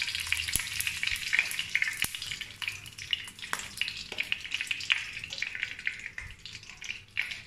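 Ghee melting and sizzling in a hot nonstick wok, with a steady crackle of fine pops.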